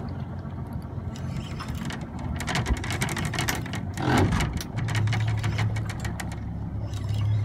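Spinning reel being cranked against a hooked yellowtail, giving a run of rapid clicks and whirring for over a second, over the steady low hum of a boat's idling outboard motor. A brief louder rush comes just after the clicking stops.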